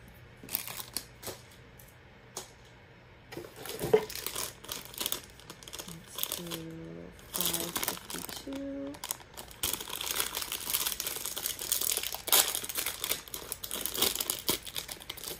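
A plastic blind-bag packet crinkling as hands handle it and work it open, getting denser and busier in the second half. A few small clicks come first.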